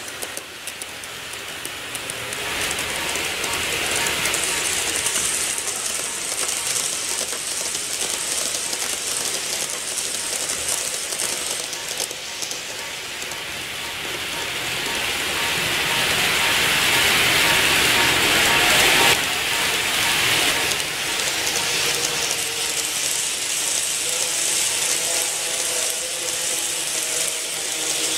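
N-gauge model electric train running on the track, its motor and gears whirring with the wheels clattering on the rails. The sound builds over the first few seconds, is loudest a little past the middle, and drops off abruptly before carrying on at a lower level.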